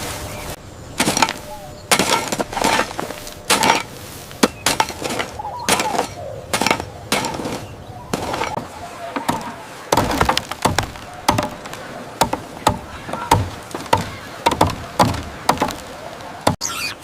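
An irregular run of sharp knocks and cracks, several a second at times, like chopping or breaking.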